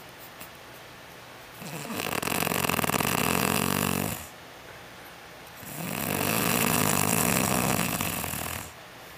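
A woman snoring loudly while asleep: two long snores of about three seconds each, with a quiet breath-length pause between them.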